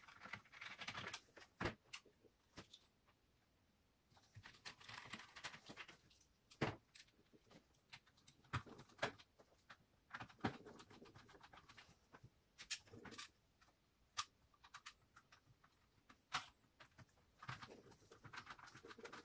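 Quiet, scattered light clicks and taps of a screwdriver and small plastic and metal parts being handled on an opened bread machine, a dozen or so sharp ticks spread through the stretch.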